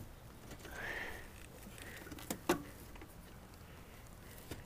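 Faint clicks and a short scraping creak from an ATV's mechanical rear brake pedal and parking-brake catch being worked by foot and hand, the catch not yet clipping in. The creak comes about a second in, two sharp clicks a little after two seconds and another near the end.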